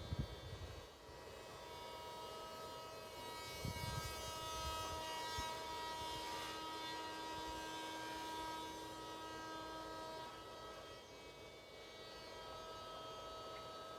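A steady mechanical hum made of several steady tones, with low rumbling bumps at the start and about four seconds in; some of the tones stop about ten seconds in.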